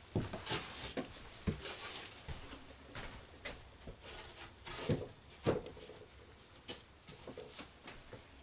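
Irregular knocks, taps and scrapes of hands working on OSB countertop pieces, with two louder knocks about five seconds in.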